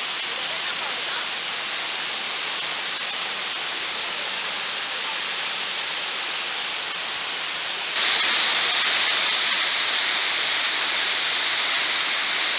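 Waterfall on a river, its falling water making a loud, steady hiss. The sound changes abruptly about eight seconds in and drops a little in level a moment later.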